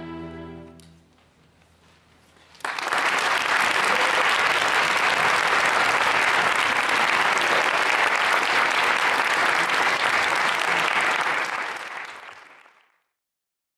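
A string orchestra's last chord dies away in the first second. After a short silence, audience applause starts suddenly and goes on steadily, then fades out near the end.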